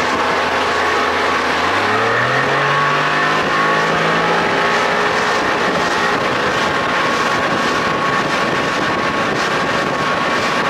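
Two-stroke outboard motor running under way on a boat, its pitch rising over the first few seconds as it picks up speed, then holding steady.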